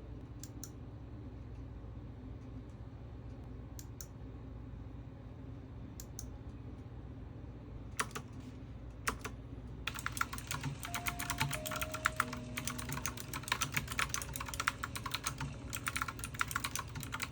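Keys of a new computer keyboard being pressed: a few single clicks spaced out over the first several seconds, then steady rapid typing from about ten seconds in.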